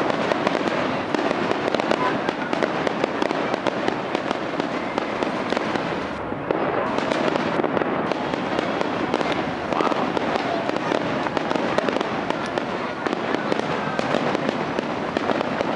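Aerial firework shells bursting in close, overlapping succession during a show's finale, so that the booms and crackles run together with no pause.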